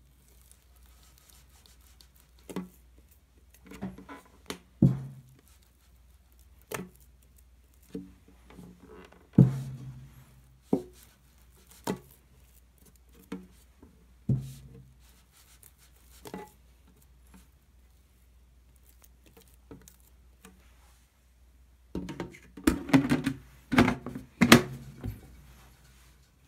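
Hands stretching and folding a very wet, oily ciabatta dough in a clear plastic tub: scattered wet slaps and squelches of the dough, with knocks against the plastic, one every second or two. A denser run of louder slaps and knocks comes near the end.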